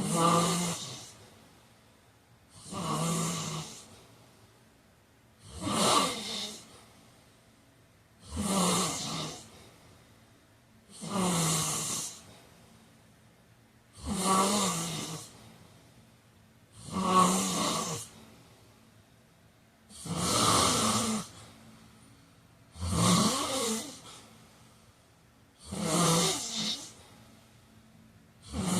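A man snoring in his sleep in a steady rhythm, about one snore every three seconds. Each snore lasts about a second, a low buzzing tone under a breathy rasp.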